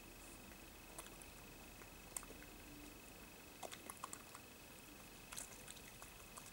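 Faint, irregular wet clicks and crunches of a European badger eating from a plate of food, a few sharp ones scattered through, over a steady faint high whine.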